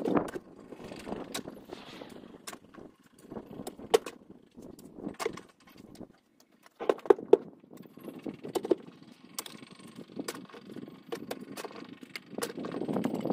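Steel spade scraping and digging into soil and gravel, with stones clinking and the blade striking the ground in irregular sharp knocks.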